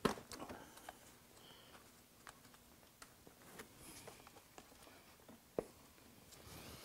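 Light scattered clicks and taps of the Gen 2 Suzuki Hayabusa's plastic side fairing being handled and pushed into place, with a sharper click at the very start and another near the end.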